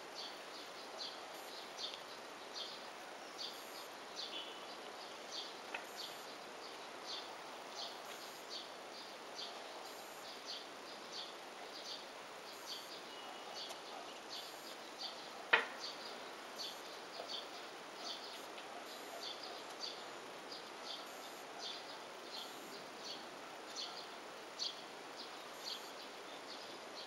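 Outdoor ambience: a steady run of short, high chirps repeating roughly one to two times a second, with a single sharp click about halfway through.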